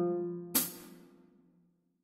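Synthesized tab-playback note, a sustained low F, fading out. About half a second in there is a single short hi-hat tick from the playback's drum track.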